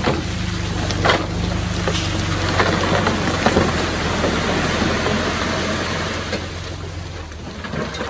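Komatsu D20P crawler bulldozer's diesel engine running steadily under load, with the rough scraping and scattered knocks of stone being pushed. The scraping and the engine ease off near the end.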